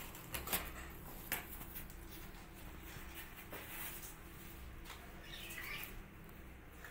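Kitten's claws scratching and tapping on cardboard, with a few sharp clicks in the first second and a half, then a short, wavering, high-pitched kitten mew a little after five seconds in.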